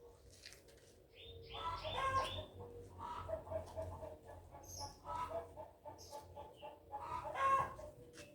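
Chickens clucking, a run of short repeated calls with a few louder squawks.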